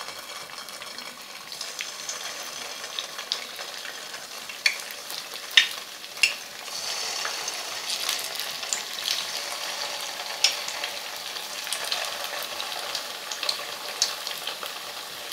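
Hot oil sizzling and crackling as potato-stuffed bread rolls deep-fry in a kadhai, with scattered sharp pops. The sizzle grows louder about seven seconds in as more rolls go into the oil.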